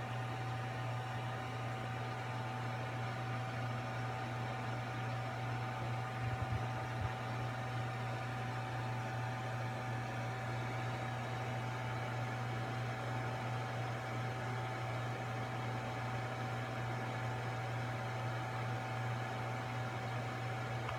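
Steady hum with a constant high whine over a hiss, unchanging throughout, with a couple of faint low knocks about six to seven seconds in.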